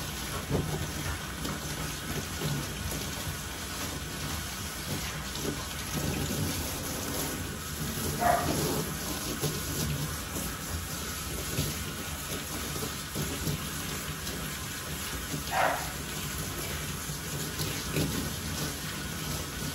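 Handheld bathing sprayer running, a steady hiss of water spraying onto a French Bulldog's coat and splashing against a stainless steel tub. Two short high squeaks come through it, about 8 and 16 seconds in.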